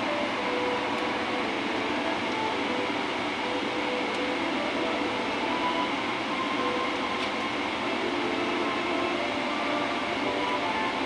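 Steady cabin noise of an airliner in flight: the even rush of airflow and engines heard from a passenger seat.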